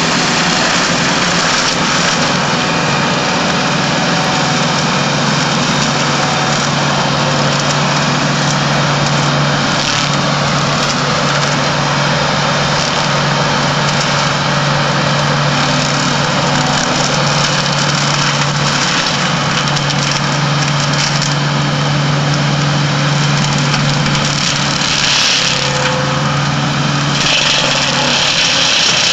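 Tractor-mounted forestry mulcher with a rotor of swinging forged-steel hammers running steadily with the tractor engine, shredding conifer brush and branches: a steady hum under a dense grinding noise of wood being chewed up, with a brighter burst of shredding near the end.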